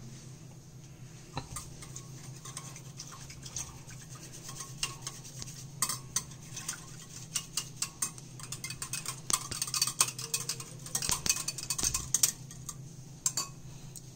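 Wire whisk beating thinned yogurt in a glass bowl: rapid clicking and scraping of the wires against the glass, sparse at first, then faster and louder through the middle and latter part before easing off near the end.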